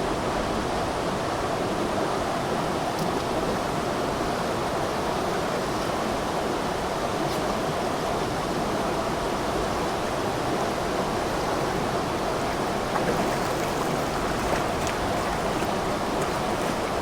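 A stream flowing steadily, an even rush of running water.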